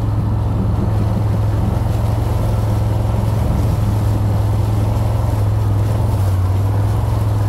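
Quad bike (ATV) engine running steadily under way, a constant low drone that holds the same pitch throughout.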